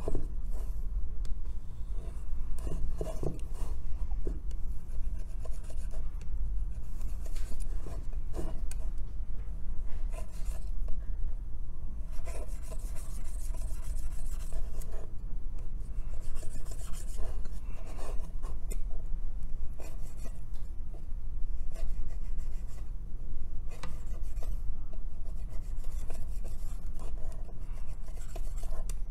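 Repeated scraping and rubbing on an iPhone logic board as old solder is cleaned off the chip pads for reballing, over a steady low hum.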